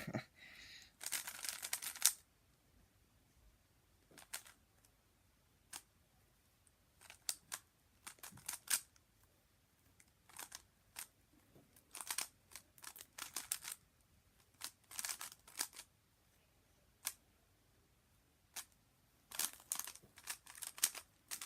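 Zcube M 3x3 speedcube being turned fast by hand: bursts of quick plastic clicks and clacks from the layer turns, broken by short pauses between move sequences.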